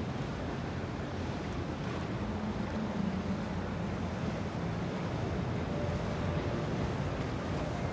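Steady wash of water and wind noise on the microphone, with the low hum of a boat motor running underneath.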